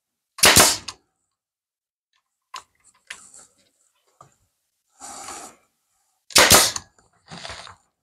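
Pneumatic nail gun firing twice, about six seconds apart, each a sharp loud bang as it drives a nail into the wooden roof panel. Fainter clicks and rustles come between the shots.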